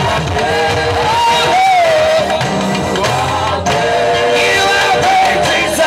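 Live gospel music: several voices singing together over a band with a steady low beat.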